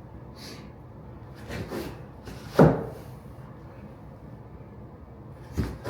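Vinyl flooring planks being handled and fitted: a few separate knocks and thumps, the loudest about two and a half seconds in and another near the end.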